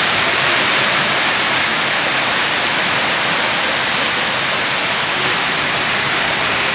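Heavy downpour, with muddy runoff rushing down a flight of outdoor steps: a loud, steady rush of water.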